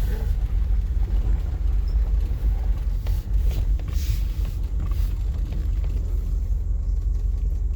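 Steady low rumble of a car's engine and road noise, heard from inside the car as it is driven.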